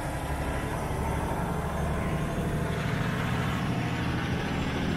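Canal commuter boat's engine running steadily under way, a low rumble.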